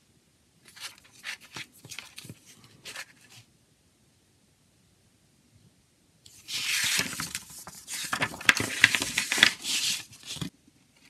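Glossy paper pages of a CD booklet rustling and crinkling as they are turned and pressed flat by hand: a short spell of soft rustles, then a louder, longer stretch of crinkling from about six seconds in.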